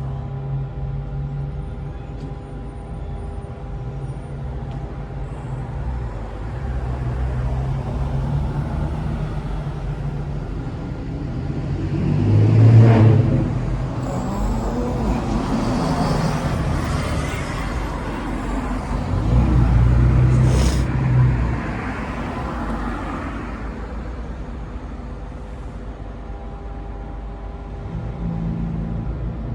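Road traffic: a steady engine hum, with vehicles passing close by, loudest about twelve seconds in and again around twenty seconds.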